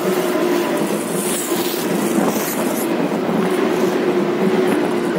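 A JR 205-series electric commuter train passing at close range on a curve. Its wheels rumble steadily over the rails under a sustained hum, with a few brief high squeals about one and two seconds in.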